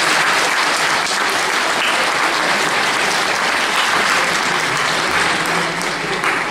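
Audience applauding steadily, dying down near the end.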